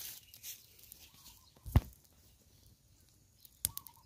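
Sparse sharp cracks and clicks from dry twigs in a freshly lit open wood fire, the loudest crack a little under two seconds in and a quick run of small clicks near the end.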